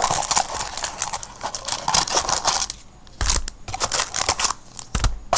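Cardboard hobby box and wrapped trading-card packs being handled, rustling and crinkling, with two dull thumps about three and five seconds in.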